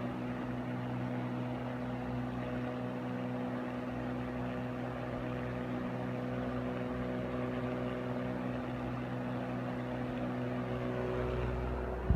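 Mitsubishi E-30S ventilation fan running steadily on a replacement VD-18Z4 motor: an even motor hum with the rush of air off the blade. It runs without heavy vibration.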